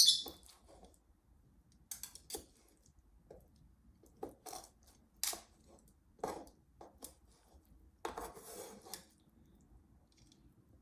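Kitchen dishes and utensils clinking and knocking as cut octopus is put into a dish: one sharp loud knock at the start, then scattered light clinks and taps, with a brief rustling scrape about eight seconds in.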